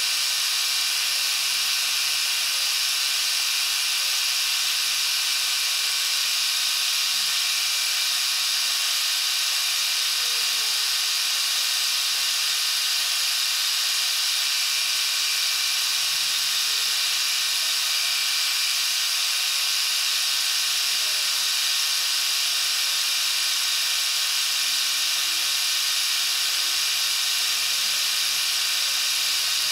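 Milling machine spindle running with an end mill cutting a pocket in a metal plate: a steady high-pitched whine and hiss that holds unchanged throughout.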